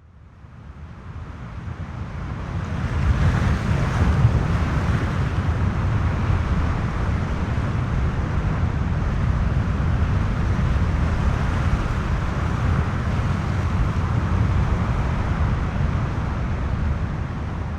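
Multi-storey car park ambience: a steady, heavy low rumble with a hiss above it, fading in over the first few seconds and holding steady.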